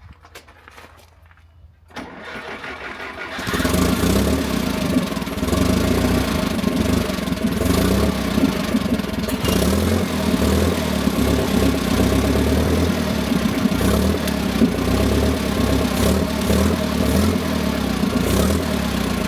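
An engine starts about two seconds in, catches, and then runs steadily at a low, rough idle.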